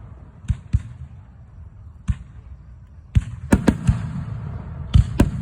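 Aerial fireworks going off: a few sharp bangs, then a quick run of several about three seconds in and two more near the end, each followed by a low rumbling echo and a faint crackle.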